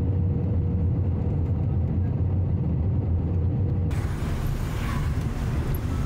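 Low, steady vehicle rumble with a faint steady hum over it. About four seconds in it changes abruptly to a fuller, noisier rumble.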